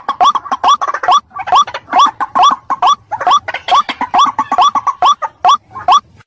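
White-breasted waterhen calling, a fast run of short upward-sweeping notes at about three a second, with overlapping calls in the background.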